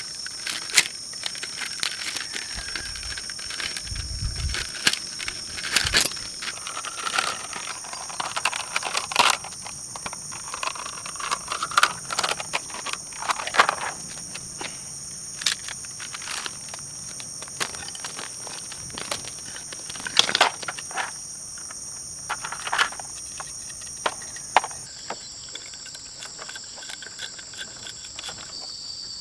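Insects trilling steadily at a high pitch, the tone shifting slightly near the end, with irregular sharp clicks and knocks throughout.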